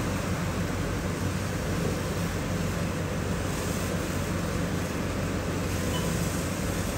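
Steady operating-theatre room noise: an even hiss with a low electrical hum, unbroken by any distinct event.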